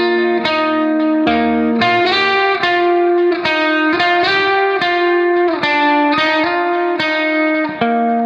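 Background music: plucked string notes in a steady pattern, a new note about twice a second.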